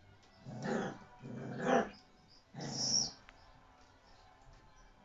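Four-week-old Malamute puppies play fighting, giving three short growly yaps in the first three seconds, the middle one the loudest.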